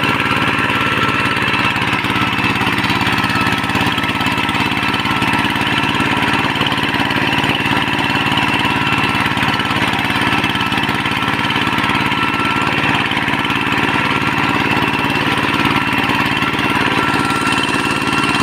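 Kubota tractor engine running at a steady speed while tilling a rice paddy, an even drone with a faint steady whine over it.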